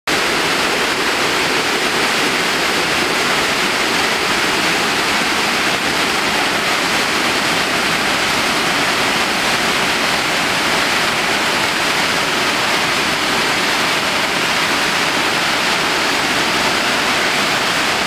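Waterfall in heavy monsoon flow: a loud, steady rush of falling water that cuts in suddenly at the start.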